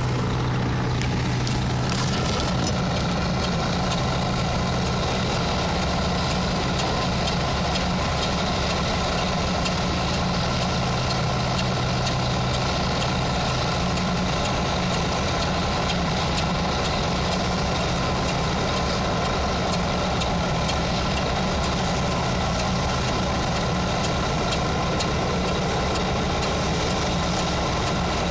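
Stick (MMA) welding with a 4 mm electrode: a continuous arc crackle and hiss over a steady low engine-like hum, with no break.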